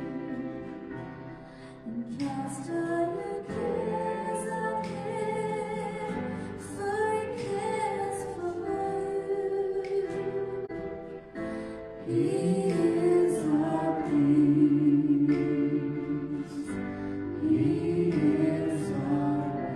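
Live worship band: women's voices singing a hymn-like worship song over keyboard accompaniment.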